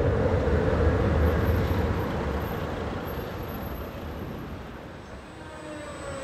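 Tram rumbling away into the distance, its rolling noise fading steadily over about five seconds and leaving a faint background of traffic.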